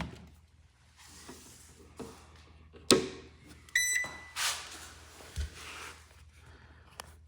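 Handling clicks and a sharp knock, then a short high electronic beep from the ultrasonic cleaner's control panel as it is plugged in and switched on, followed by rustling and a low thud.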